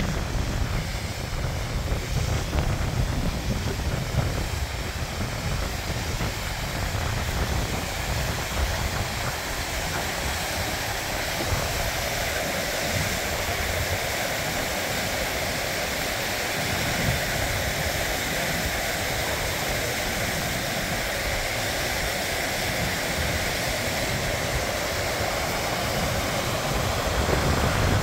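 Mountain river rushing steadily over rock cascades. Gusts of wind buffet the microphone in the first half, and from about ten seconds in the rush of water is more prominent.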